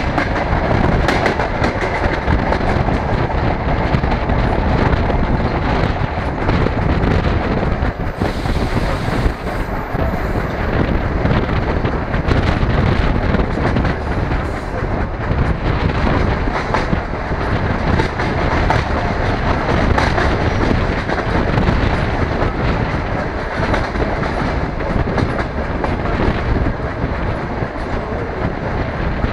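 DR1A diesel multiple unit running at speed, heard through an open window: a steady rumble of the moving train with its wheels clicking and clattering over the rail joints.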